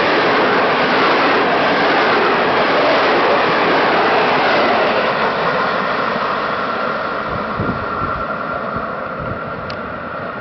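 Passenger coaches of an intercity train behind an EP07 electric locomotive passing close by at speed, with a steady rumble and rush of wheels on rail. The noise fades away in the second half as the train draws off.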